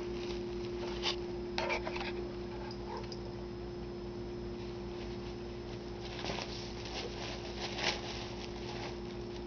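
A cat biting and worrying a soft red toy on carpet: a few short scuffs and clicks, the loudest near the end, over a steady electrical hum.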